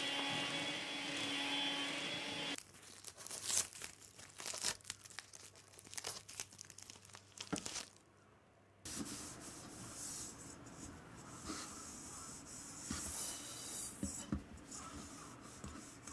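Handheld vacuum cleaner running with a steady whine, then cutting off about two and a half seconds in. After it come light clicks and rustles, then soft rubbing sounds.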